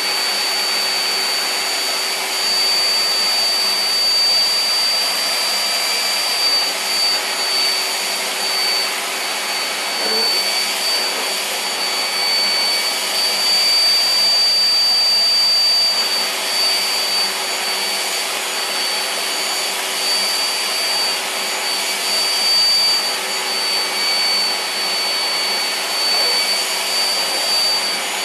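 Vacuum cleaner running steadily, a constant rushing noise with a high motor whine.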